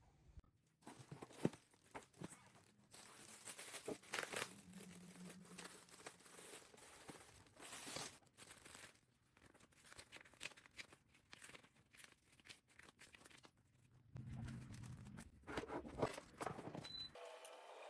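Faint rustling and crinkling with scattered handling clicks, in irregular spurts.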